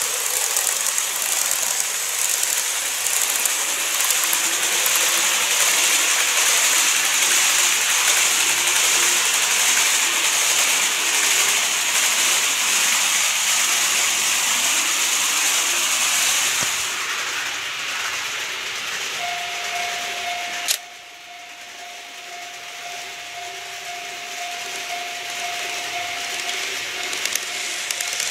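N-gauge model train (TOMIX 103 series) running along the track, a steady rushing hiss of wheels and motor that fades as it moves away. About two-thirds in comes an abrupt cut, and a model level crossing's warning tone beeps steadily while a train runs past.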